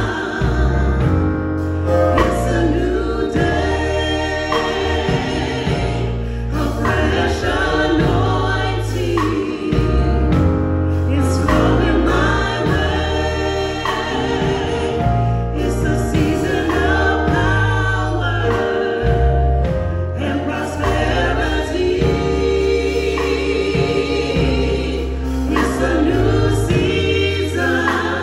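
Gospel choir singing with instrumental accompaniment, over a bass line that moves in held notes.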